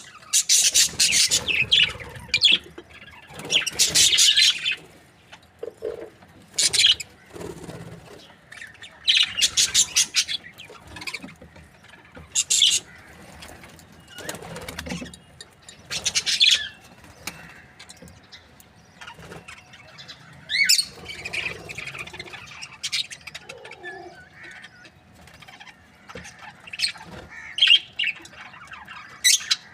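Budgerigars chirping and chattering in loud, high-pitched bursts of rapid notes every few seconds, with softer chatter between.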